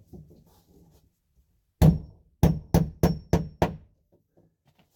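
Six hammer blows: a single strike, then after a short pause five quick strikes at about three a second.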